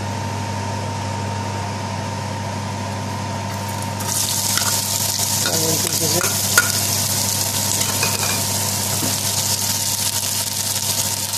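Sliced onions hit hot vegetable oil in a non-stick frying pan about four seconds in and start sizzling with a steady hiss. A spatula stirs them, clicking now and then against the pan. Before the onions go in there is only a steady low hum.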